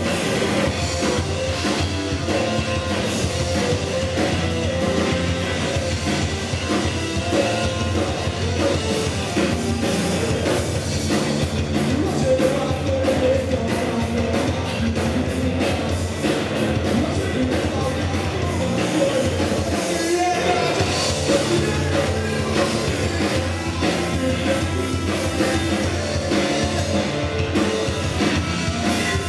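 Hardcore band playing live: distorted electric guitars, bass and drum kit, with a singer's vocals into the microphone.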